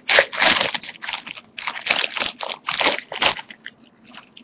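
Foil wrapper of a Topps Jumbo football card pack crinkling and crackling as it is opened by hand, stopping about three and a half seconds in.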